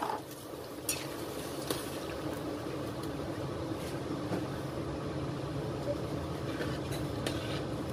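Chicken broth at a rolling boil in a metal wok, a steady rumbling bubbling, with a few faint clinks of a metal spatula stirring in the just-added macaroni.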